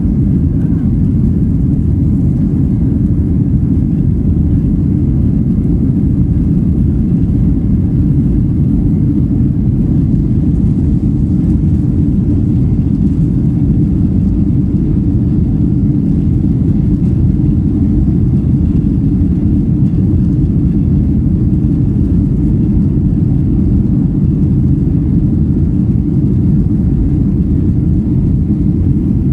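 Cabin noise of a Boeing 737 airliner climbing out after takeoff: a loud, steady low rumble of jet engines at climb thrust and rushing air, heard from a window seat.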